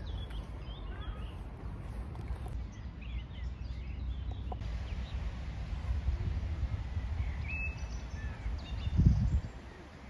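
Outdoor park ambience: a steady low rumble with scattered faint bird chirps, and a brief low bump about nine seconds in.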